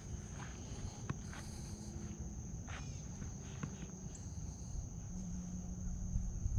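Insects trilling steadily on one high, unbroken note, over a low rumble, with a few faint clicks.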